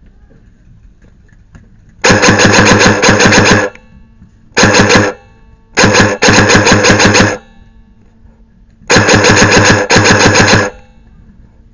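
Airsoft gun firing full-auto in four bursts of rapid, buzzing shots, the second burst short and the others one to two seconds long.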